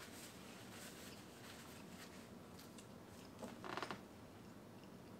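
Faint eating sounds: quiet chewing and soft handling of tacos, with one short, louder pitched sound about three and a half seconds in.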